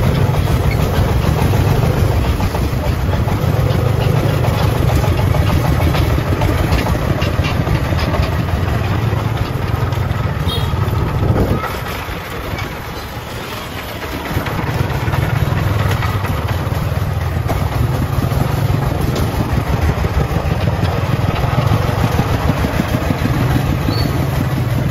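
Single-cylinder diesel engine of a homemade công nông truck running steadily with a heavy low rumble, dropping away for about two seconds near the middle before coming back up.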